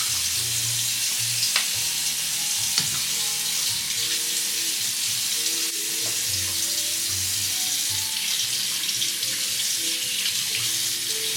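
Water running steadily from a tap, an even hiss that starts abruptly. Background music with a bass line plays faintly underneath.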